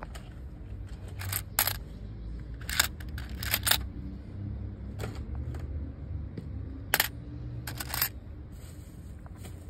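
Loose metal coins clinking against each other in a metal tin as a hand sifts and drops them. The short clinks come in small clusters with a pause in the middle, over a low steady rumble.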